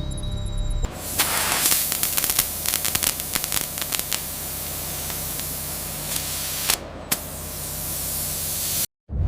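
Steady loud hissing thick with sharp crackles, starting about a second in after a low hum and cutting off abruptly near the end.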